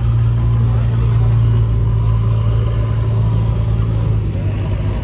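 Tractor diesel engine idling close by: a steady, even low hum.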